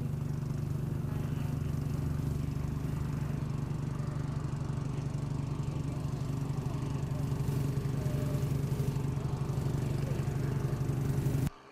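An engine running steadily: a low hum with a fast, even pulse.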